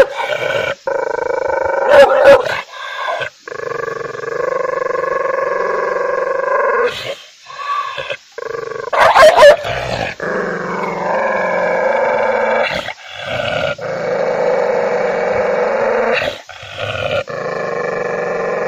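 A dog giving long, drawn-out snarling growls, each held for a few seconds, broken by two short, loud barks: one about two seconds in and one about nine seconds in.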